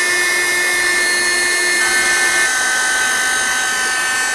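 Electric heat gun running, a steady fan whir with a high whine. The whine steps slightly lower about two seconds in.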